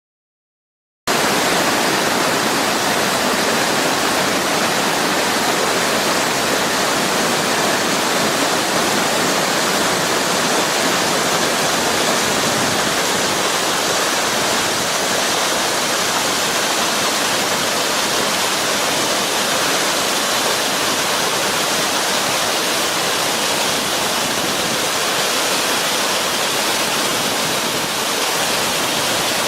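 A waterfall on the Hashidate River, water falling in a loud, steady rush. It starts about a second in.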